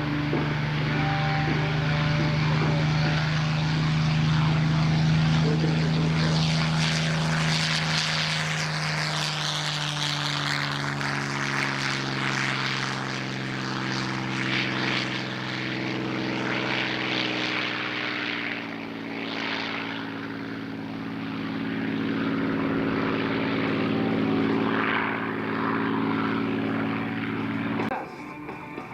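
Propeller-driven WWII fighter's Rolls-Royce Merlin V12 engine running steadily, its pitch dropping to a lower note about a third of the way through. The sound cuts off abruptly near the end.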